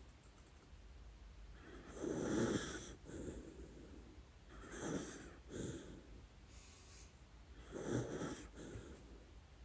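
A dachshund snoring in her sleep. Three stronger snoring breaths come about three seconds apart, with softer breaths between them.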